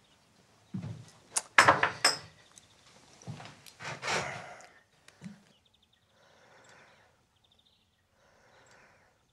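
Several sharp knocks and clinks of glassware and small objects being set down on a wooden desk, bunched in the first five seconds, followed by two faint scraping sounds.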